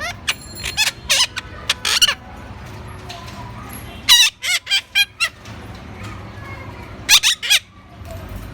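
Rose-ringed parrot giving sharp, high-pitched calls in three quick bursts: several at the start, more about four seconds in, and a last few about seven seconds in.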